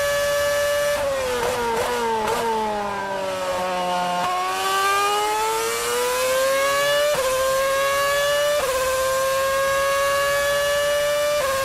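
Formula 1 car's Cosworth 2.4-litre V8 heard onboard at high revs. It holds a steady high note, then drops in pitch through a series of quick downshifts under braking. It pulls back up through the gears with rising pitch, a short dip at each upshift.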